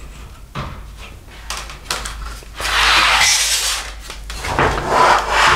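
Injection-molded plastic Freightliner grille with its metal bug screen being handled and turned over on a wooden table. A few short knocks come first, then a long scrape, then more scraping near the end.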